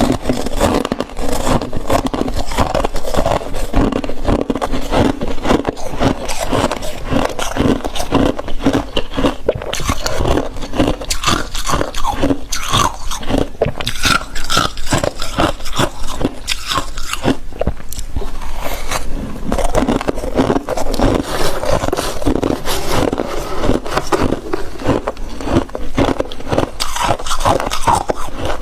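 Thick, fluffy freezer frost being crunched and scraped: a dense, continuous run of crisp crunches.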